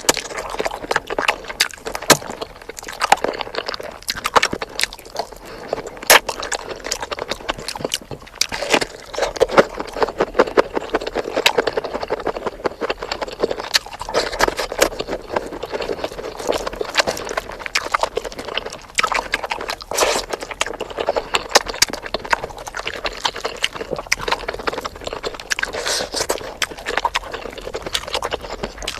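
A person chewing and smacking while eating spicy chicken: a dense, irregular run of small wet clicks and smacks.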